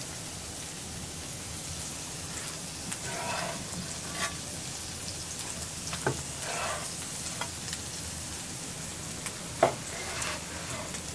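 A large cleaver-style knife slicing through a thick grilled pork chop on a wooden board: several soft cutting and scraping strokes and one sharp knock of the blade against the board near the end, over a steady sizzle from cooking on the fire.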